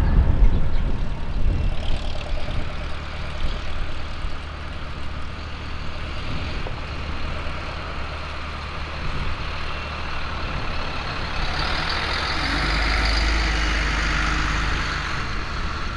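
Jet engines of a Boeing 737 MAX 8 (CFM LEAP-1B turbofans) at takeoff thrust on the takeoff roll: a steady low rumble that grows louder, with a rising hiss and whine from about eleven seconds in. The first second holds the louder rumble of a Boeing 787-9 climbing away.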